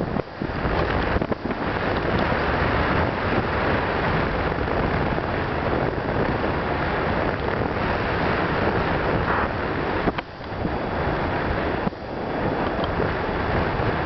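Wind rushing over the microphone of a camera mounted on a paraglider's harness during the final glide to land, a steady noise that drops briefly a few times.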